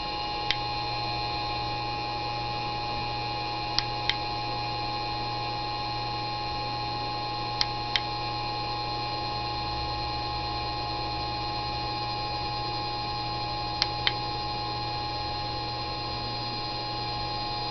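Globe 30 V DC motor running steadily at its full 30 V, about 7,000 RPM: an even electric hum and whine made of several held tones. Four pairs of short sharp clicks break in along the way.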